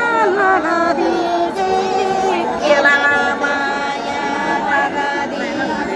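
Women singing a Nepali folk song without instruments, holding long notes that bend at their ends.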